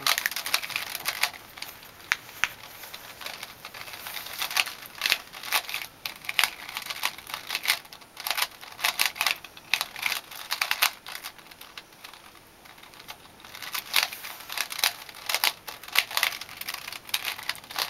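Rubik's cube being solved quickly: its plastic layers are twisted in fast runs of clicking and rattling, with a short lull about twelve seconds in. It is a poor-quality cube that the solver says is not very good.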